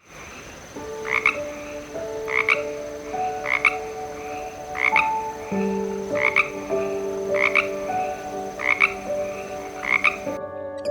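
Frog croaking, one short call about once a second, over sustained musical notes that shift in pitch every second or so.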